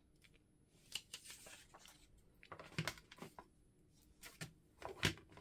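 Paper being handled on a tabletop: pieces of collage paper and card slid, tapped and laid down, giving scattered soft taps and rustles, the sharpest about five seconds in.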